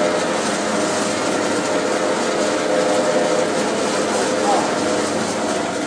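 Electric dough-sheeting roller machine running steadily, its motor and roller drive giving a continuous mechanical hum with a faint steady tone as a sheet of dough is fed through the rollers.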